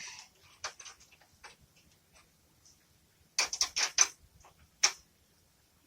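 Spanner and shifter clicking and scraping on the nut of a riv nut tool as it is turned down to compress a riv nut. Scattered light clicks, then a quick run of louder metal clicks about three and a half seconds in and one more a second later.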